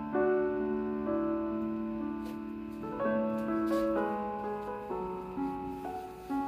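Soft background piano music, slow held chords that change about every second.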